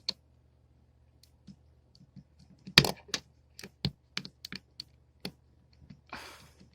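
Scattered small clicks and taps of a cell phone's plastic and metal parts being handled during disassembly, the loudest about three seconds in, then a short scraping rustle near the end.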